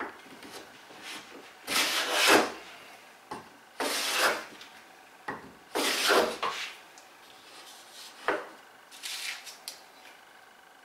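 Quangsheng No.62 low-angle jack plane cutting shavings from a board: three long planing strokes about two seconds apart and a fainter, shorter one near the end, with short knocks of the plane between strokes. The iron, as it comes from the box, is taking a thick shaving of about 3 thou or more.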